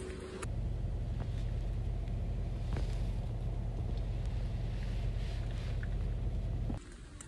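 Steady low rumble inside a car's cabin. It starts about half a second in and cuts off suddenly near the end.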